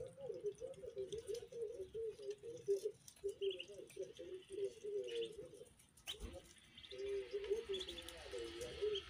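A flock of young ducklings calling continuously in soft, wavering low trills, with now and then a short high peep. The calls break off briefly about six seconds in.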